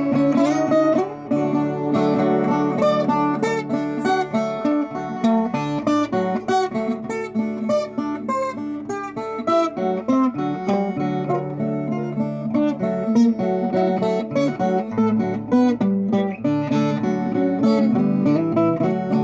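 Viola caipira played solo, its doubled steel strings plucked in a running melody over bass notes.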